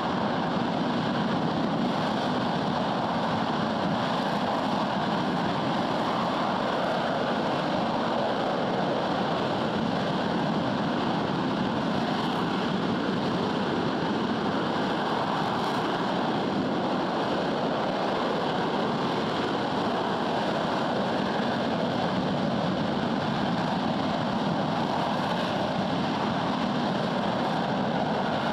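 RS-25 liquid-hydrogen/liquid-oxygen rocket engine firing at steady thrust on a static test stand: a continuous rushing noise that holds one level without a break.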